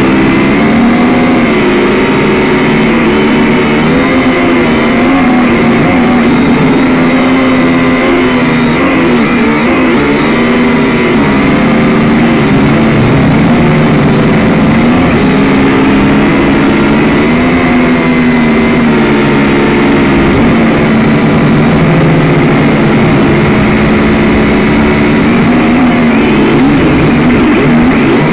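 A drone's electric motors and propellers buzzing loudly, heard through the drone's own onboard camera. Several pitched tones waver up and down as the motors change speed.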